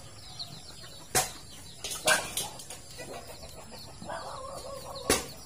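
Chickens clucking, with one drawn-out call about four seconds in, over faint chirping of small birds. Three sharp clicks stand out.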